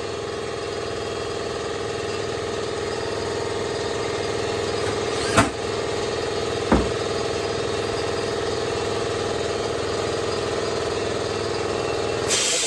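A motor running steadily at an even pitch, with two sharp clicks about five and a half seconds in and again about a second later.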